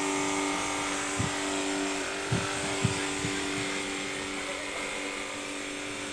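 Electric pressure washer running, its pump motor giving a steady hum under the hiss of the water jet spraying onto a motorcycle. A few short low thuds sound about a second in and again around two and a half to three seconds in.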